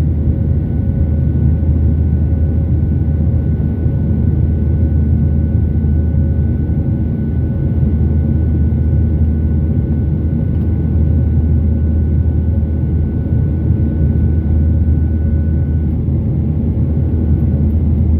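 Boeing 737-800 in its climb after takeoff, heard from the passenger cabin: a steady, loud low rumble of its CFM56-7B jet engines and airflow, with a faint steady whine above it.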